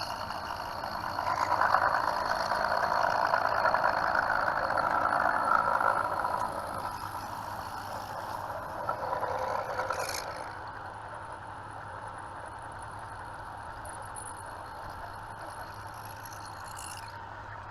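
Metal lathe running while the tool takes a light facing cut, ten thousandths deep, across the face of a scrap-metal ring. The cutting noise is loudest in the first half and eases off about ten seconds in, leaving the lathe running steadily.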